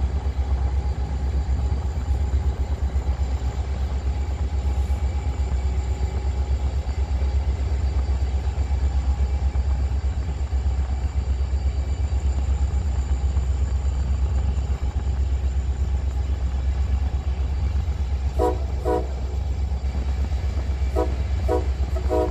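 Steady low rumble of the moving freight train and road noise. About 18 seconds in, a Norfolk Southern AC44C6M locomotive's air horn gives two short toots, then a quicker run of short toots near the end.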